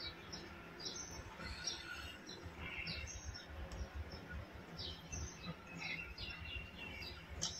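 Faint birds chirping in the background: many short, high chirps scattered through, over a low steady rumble.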